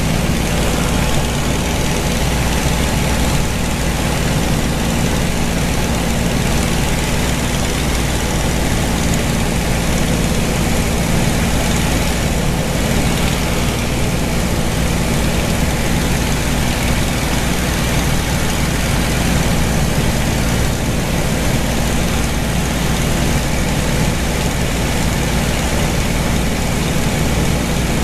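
Vintage piston-engine warbird in steady cruise, heard from inside its cockpit: a loud, unchanging engine drone with a low hum of steady tones under a thick rush of wind noise.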